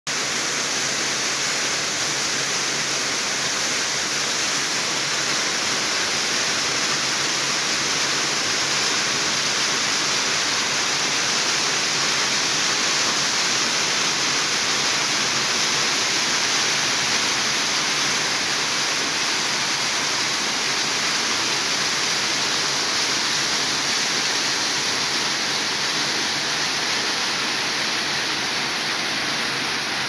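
Waterfall: a steady, unbroken rush of water pouring down a rock face and splashing into a pool below.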